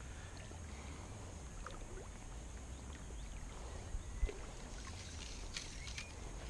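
Quiet open-water ambience from a float tube on a lake: light water movement around the tube over a low rumble of wind on the microphone, with two small knocks about four seconds in.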